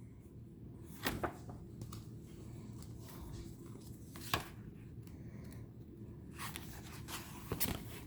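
Tarot cards being handled: short paper-on-paper slides and light taps as cards are moved and set down. There are a couple about a second in, one near the middle and a cluster near the end.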